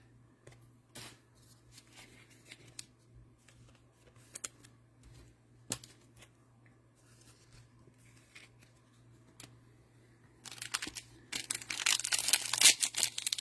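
Trading cards handled with scattered faint clicks, then about ten and a half seconds in, the crinkling and tearing of a Mosaic cello pack's plastic wrapper being ripped open, much louder than the handling.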